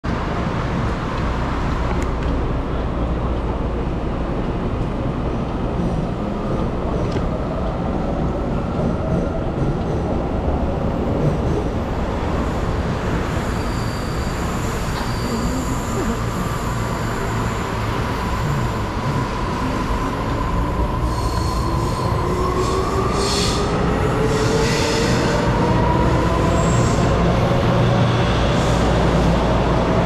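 Commuter train at a station platform: a steady rumble with wheel squeals, and a whine rising in pitch over the last ten seconds as the train pulls along the platform.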